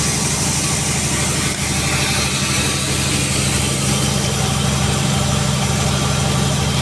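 Sawmill machinery running steadily: a pulsing, engine-like low drone with an even hiss above it.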